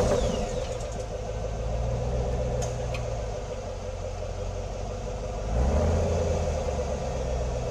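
AC Cobra V8 engine idling just after starting, its note swelling briefly about five and a half seconds in.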